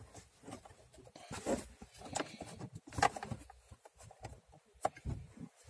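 Hands working blind behind a car's glovebox, fitting the plastic cover of the cabin air filter housing: scattered light clicks, knocks and scrapes of plastic, with a few louder knocks spread through.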